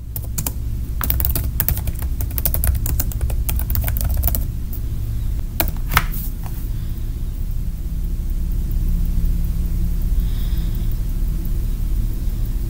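Typing on a computer keyboard: a quick run of keystrokes for about six seconds, ending in one sharper key press, over a steady low hum.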